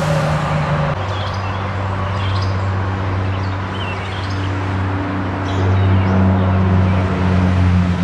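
Steady low motor hum, the loudest sound, with faint short bird chirps recurring every second or so above it.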